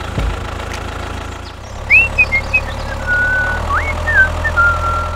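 Steady, low tractor-engine running sound with a fine pulse, for a toy mini tractor pulling a trailer. From about two seconds in, bird-like whistled calls come over it: a few short swoops upward, then longer held notes.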